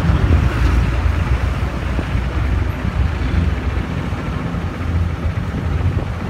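Fishing boat engine running steadily as the boat motors past, a low rumble.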